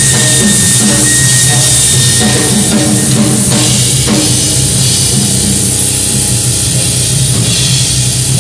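Loud live noise music: a drum kit played hard over a dense wash of electronic noise from effects pedals. A steady high tone sits over it and stops about two seconds in.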